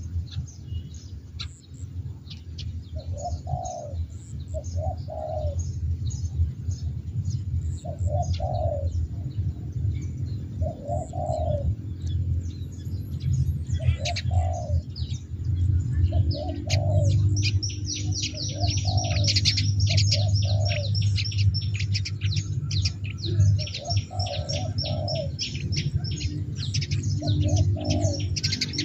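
Spotted dove cooing again and again in short low phrases a second or two apart: the heavy, drawn-out 'petir nyeret' call that dove keepers prize in a lure bird. From about halfway through, small birds chirp busily and high over it, above a low steady hum.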